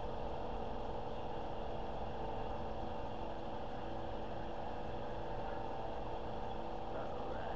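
A steady mechanical hum, an even drone with several constant tones, running unchanged.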